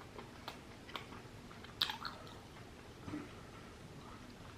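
A person chewing a mouthful of breaded fried shrimp close to the microphone, with a few scattered soft crunches, the loudest a little under two seconds in.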